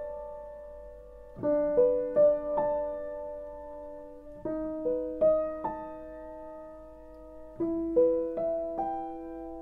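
Slow piano introduction: a group of three or four notes is struck about every three seconds and left to ring.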